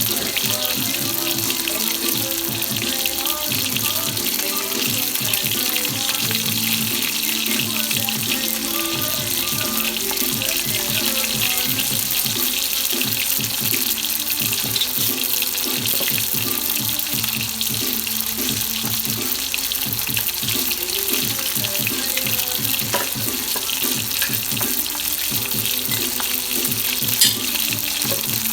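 A steady, even hiss, from running water or food sizzling in the pan, with music playing underneath. There is one brief sharp tick near the end.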